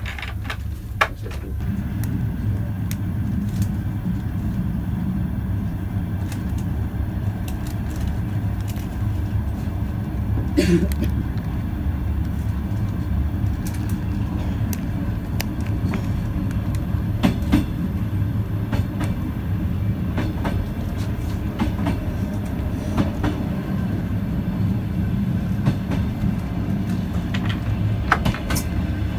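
ET2 electric train running along the line, heard from inside the car by the door: a steady low rumble with sharp clicks and knocks from the wheels and car now and then.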